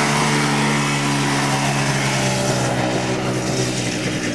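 Small engine of a youth ATV running at a steady, even pitch, with a constant hiss behind it.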